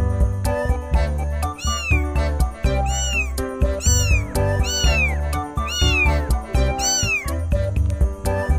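A cat meowing six times, about once a second, each meow rising then falling in pitch, over background music with a steady beat.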